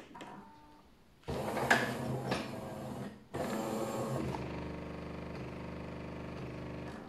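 Jura E6 fully automatic espresso machine running while it heats up for a double espresso: a faint short beep as the touch screen is tapped, about two seconds of machine noise, a brief pause, then a steady buzz for the last three and a half seconds.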